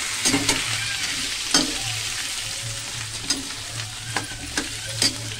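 Boiled potato pieces sizzling in hot oil in a steel kadai, with a metal spoon knocking and scraping against the pan about seven times at uneven intervals as they are stirred. The sizzle eases a little toward the end.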